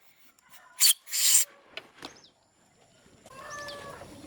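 Two short rasping scrapes about a second in, then chickens clucking and birds chirping in the background.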